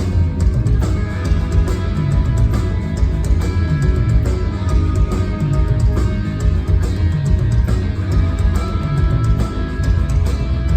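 Rock band playing loud and without pause: heavy distorted electric guitars over bass and drums.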